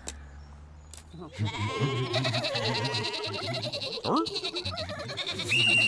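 Several cartoon sheep bleating together in overlapping voices, with a high held note near the end.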